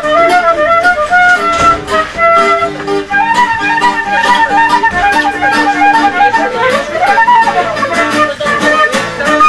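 A transverse flute plays a stepping melody over steadily strummed acoustic guitar chords.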